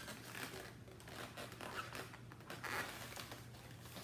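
Faint rustling and rubbing of latex balloons being handled and straightened into a balloon monkey.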